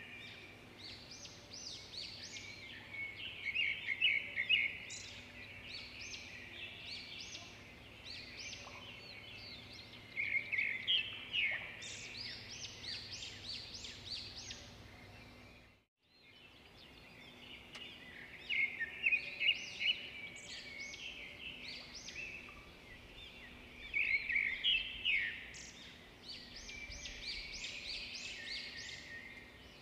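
A recording of birdsong: many small birds chirping and trilling in quick bursts over a faint steady hum. It fades out briefly about halfway through and starts again, as a looped track would.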